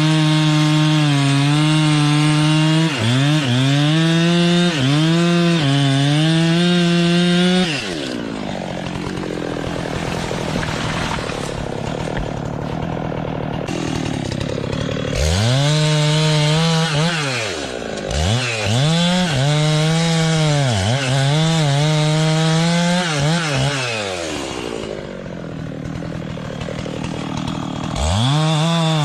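Two-stroke chainsaw engine running at high revs, its pitch dipping sharply and recovering again and again. There are two quieter stretches where the high engine note drops away.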